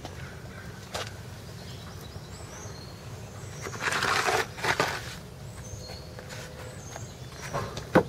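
A brief rustling crunch about four seconds in, a hand pulling up grass from a crack in a concrete patio, over a low steady outdoor hum with faint bird chirps.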